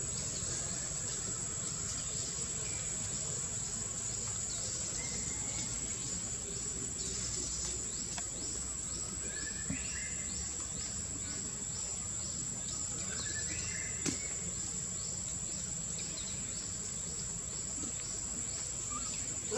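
Forest insects buzzing steadily at a high pitch, with fast, evenly repeating chirping pulses underneath. A few short chirping calls come in around the middle.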